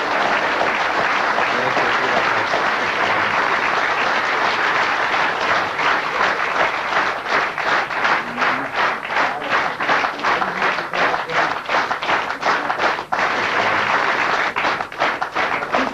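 Theatre audience applauding. Partway through, the applause settles into clapping in a steady rhythm, about two to three claps a second, and it eases off near the end.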